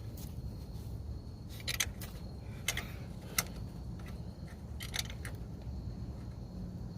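Scattered light metallic clicks and clinks from hand tools and fasteners being handled, about half a dozen spread over several seconds, with a small cluster near the two-second mark. A steady low hum runs underneath.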